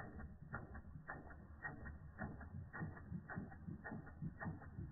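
Ernst Plank Tripod toy steam engine replica running steadily. It makes an even rhythm of paired clicks, about two pairs a second, over a low running hum.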